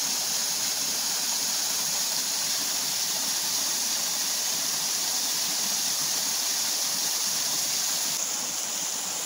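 Half-frozen waterfall with water flowing heavily, a steady rushing hiss that drops a little about eight seconds in.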